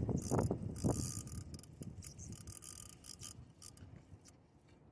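Fishing reel ticking in irregular clicks as a hooked fish is reeled in, loudest in the first second and fading away.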